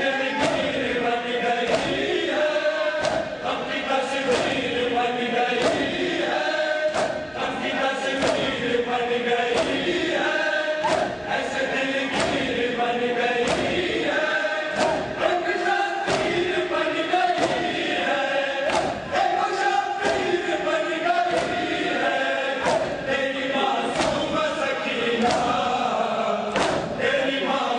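A large crowd of men chanting a noha (Muharram lament) in unison, with sharp slaps about once a second from hands striking bare chests in matam.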